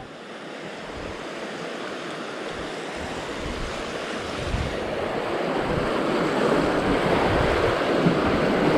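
Rushing whitewater of a river rapid, growing steadily louder as the canoe runs down into it, with low rumbling on the microphone from about three seconds in.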